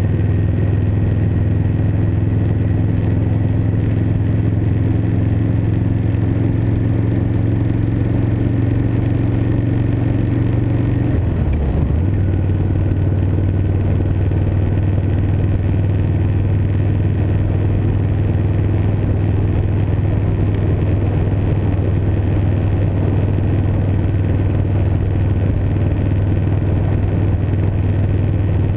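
2012 Victory Vegas 8-Ball's V-twin engine running steadily at cruising speed. About eleven seconds in, the engine note dips briefly and settles a little lower.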